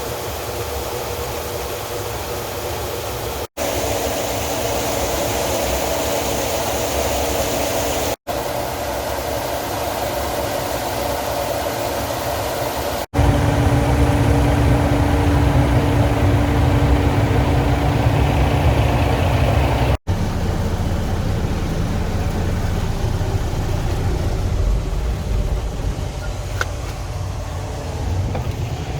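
Heavy diesel farm-vehicle engines running steadily, heard in several short clips cut one after another. The loudest clip, from about halfway through, is a deep engine rumble with a steady hum over it.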